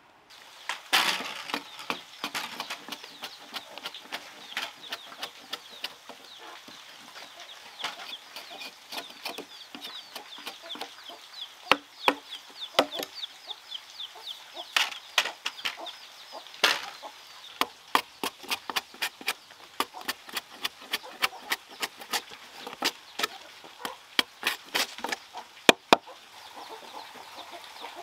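Machete chopping into a log, sharp knocks of blade on wood at an uneven pace, coming about two or three a second in the later part. Chickens cluck in the background.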